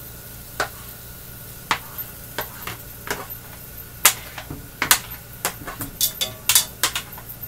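Irregular sharp clicks and knocks of a utensil scraping and tapping crab meat off a tray into a frying pan, thicker in the second half, over a low steady sizzle of shrimp searing in the pan.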